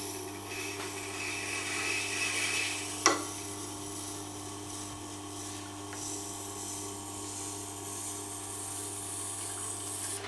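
Serrations of a Spyderco knife blade grinding on a Tormek's fine-graded SG stone wheel: a steady hiss of steel on stone over the even hum of the sharpener's motor, with one sharp click about three seconds in.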